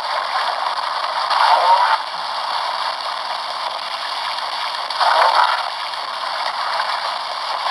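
Recorded whale calls played back through a small sound-module speaker, thin and without bass, over a loud hissing background noise in the recording. Two swelling, gliding calls stand out, about a second and a half in and again about five seconds in.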